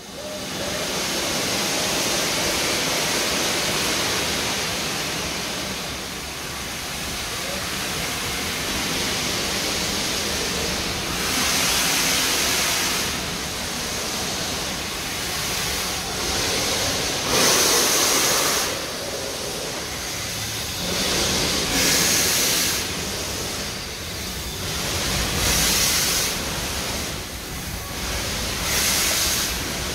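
Steam locomotive hissing steadily as it stands with steam up. From about eleven seconds in, loud rushing exhaust beats come every few seconds as it starts the train away slowly.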